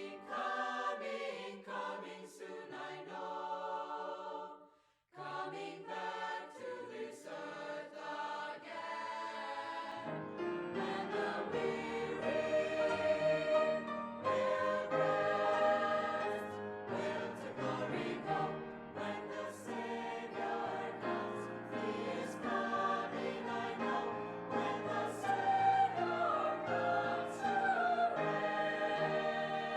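Choral music: a choir singing with accompaniment, thinner at first with a brief pause about five seconds in, then fuller from about ten seconds on.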